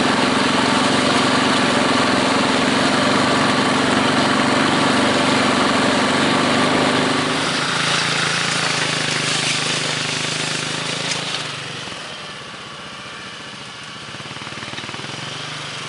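A field machine's engine running steadily, its note changing about halfway through and dropping quieter after about twelve seconds.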